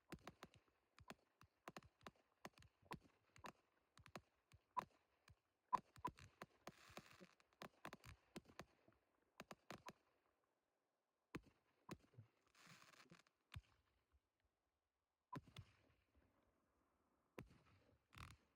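Faint fireworks: a quick, irregular run of sharp pops and cracks, several a second with short hissing stretches, thinning out to a few scattered pops after about ten seconds.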